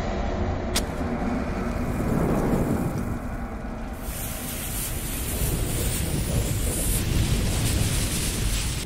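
Sound effects for a logo animation: a steady low rumble, with a single sharp click about a second in. A hissing, crackling sound of a burning fuse and flames grows brighter about halfway through.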